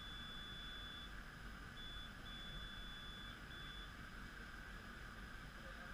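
A faint, thin, steady high-pitched electronic tone that stops about a second in, then comes back in three short broken stretches, over a quiet even background hiss.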